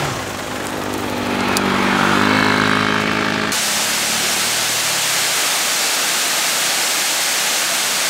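A motor vehicle's engine running with a steady hum, cut off suddenly about three and a half seconds in by the steady rush of a waterfall.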